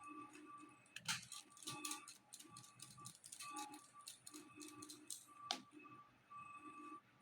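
Faint background music, with scattered sharp clicks and rattles of small hard parts being handled. The loudest clicks come about a second in and about five and a half seconds in.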